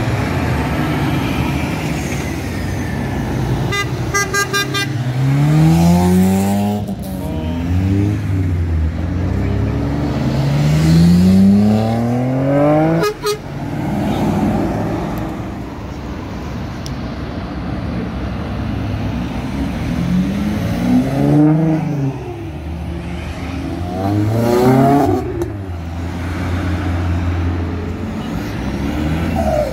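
Cars pulling away one after another, engines revving up with rising pitch over a steady low engine rumble. A horn sounds in quick pulses about four seconds in, and there is a single sharp crack about thirteen seconds in.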